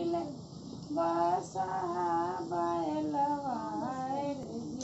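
A woman singing a folk song unaccompanied, holding long notes that bend and waver in pitch.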